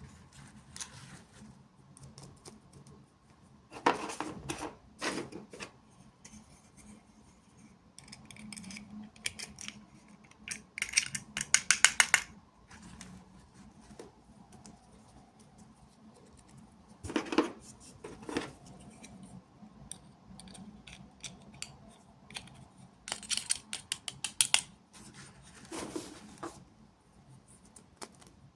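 Small toy packaging being handled and opened by hand: scattered clicks, crinkles and snips in several separate bursts, with quieter handling noise between them.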